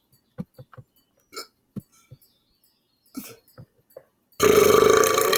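A few short, soft throat and mouth clicks as a man works up air, then one long, loud burp lasting about a second near the end.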